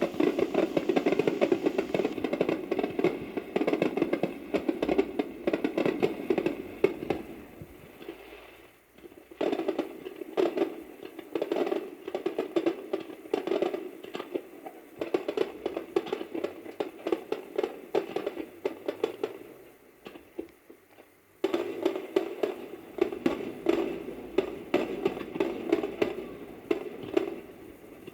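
Aerial fireworks crackling: dense, rapid pops in three waves, each one dying away before the next begins.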